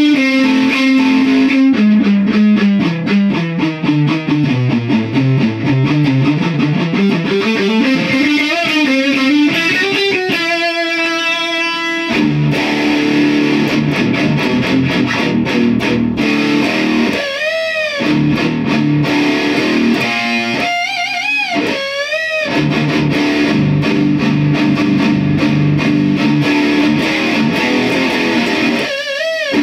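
Electric guitar played through an overdrive pedal running a swapped-in precision audio op amp, which gives it plenty of gain and distortion. The sound comes from a small guitar cab picked up in the room rather than mic'd. Quick picked runs, one falling in pitch early on, give way to string bends with wide vibrato in the second half.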